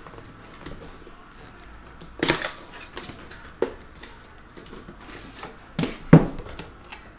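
An Upper Deck The Cup hockey box being handled: cardboard packaging shifts and a metal card tin slides out, with about four sharp knocks and clinks, the loudest near the end.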